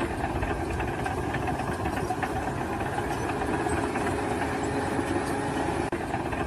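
An engine running steadily, with a brief dip about six seconds in.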